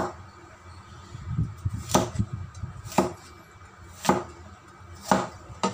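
Cleaver chopping a carrot on a wooden cutting board: sharp, separate knocks about once a second.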